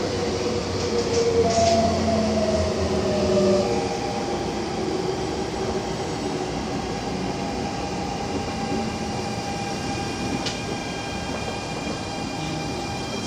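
MTR Tung Chung line A-Train (Adtranz-CAF electric multiple unit) running with steady rail and wheel rumble. Its traction motor whine falls in pitch during the first few seconds as the train slows, then holds a steady tone, with higher-pitched whine tones joining about ten seconds in as it brakes toward a station.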